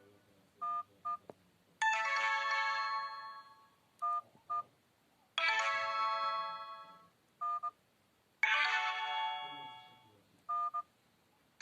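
Sony Ericsson W910i phone sound effects: three bright, bell-like electronic chimes that ring out and fade, each followed by a quick pair of short two-tone beeps, repeating about every three seconds.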